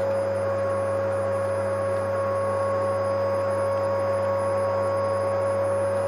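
Vacuum cleaner running steadily: a constant motor whine over an even rush of air and a low hum.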